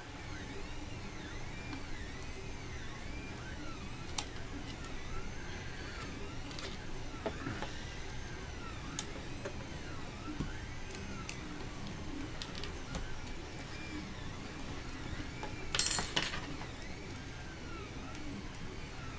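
3D printer stepper motors running, whining in a repeating pattern of rising-and-falling glides about every half second over a low steady hum. A few light clicks, and a short rustle about 16 seconds in, come from parts being handled.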